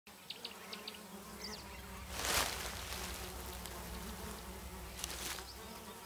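Flies buzzing in a steady low drone, with a few short high chirps in the first second and a brief louder hiss about two seconds in.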